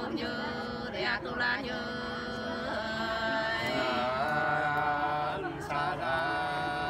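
Unaccompanied Nùng sli folk singing: voices holding long, wavering notes that slide between pitches in a slow, chant-like call-and-response love song.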